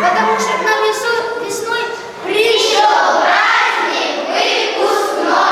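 Many children's voices at once, overlapping, high-pitched.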